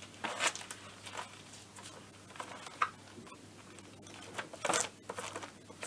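Paper pages of a workshop manual being turned and rustled by hand, in short scattered bursts with a sharp tap just under three seconds in.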